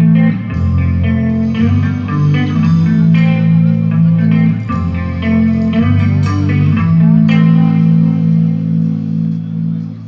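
Electric guitar and bass guitar played through amplifiers in a band sound check. Held bass notes sit under guitar chords that change every second or so, and the playing drops off briefly near the end.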